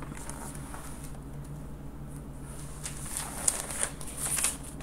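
Quiet room tone with a steady low electrical hum, and a few faint clicks and rustles in the second half.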